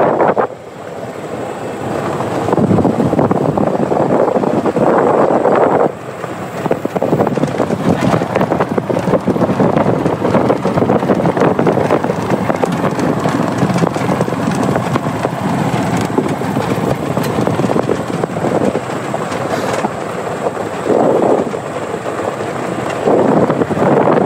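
A vehicle driving along, its running noise mixed with wind buffeting the microphone, which swells in a few louder gusts.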